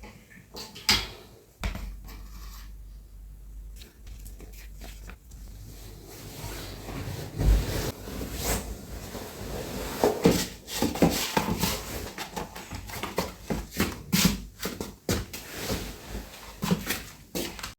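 Household handling sounds: irregular clicks, knocks and light clatter of objects being moved about, sparse at first and busier from about six seconds in.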